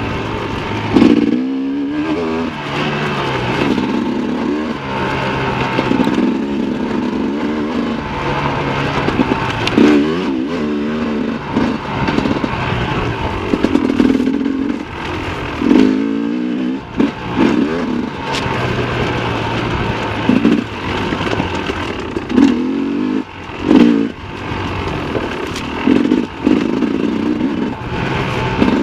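Sherco 300 SE Factory two-stroke enduro motorcycle ridden on tight dirt single track, its engine revving up and dropping back over and over as the throttle is opened and closed, a rising then falling pitch every second or two.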